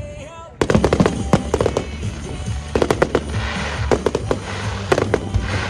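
Fireworks going off in rapid volleys of sharp bangs, with crackling hiss in between. A brief lull comes at the start. Music plays underneath.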